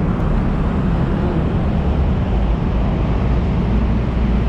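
Steady low rumble of road traffic at street level.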